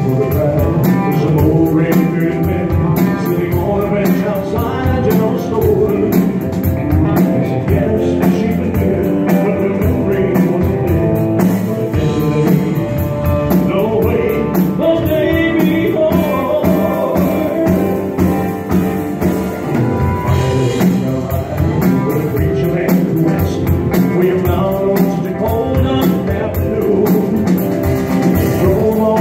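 A male singer performs live with a rock band, with drum kit and electric guitar playing under his voice at a steady beat.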